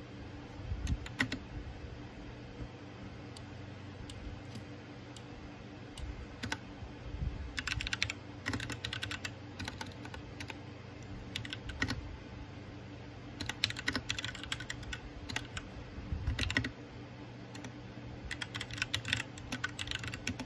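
Typing on a backlit mechanical keyboard: quick runs of key clicks, three longer bursts, with pauses and scattered single keystrokes between.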